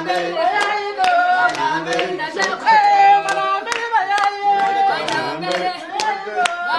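People singing a song while clapping their hands in a steady beat, about two claps a second.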